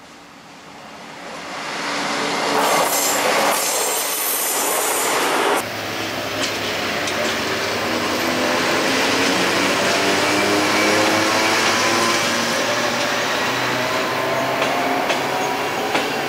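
Railway train noise. Loud rumbling noise builds over the first two seconds and cuts off abruptly at about 5.6 s. After that a train runs steadily with a whine that rises slowly in pitch, and a few wheel clicks come near the end.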